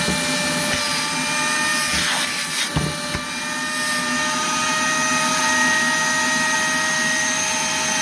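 Hart 6-gallon 5 HP wet/dry shop vac running with a steady whine. About two to three seconds in there are a few knocks, and the whine shifts slightly lower as the hose nozzle seals against a battery pack and loads the motor.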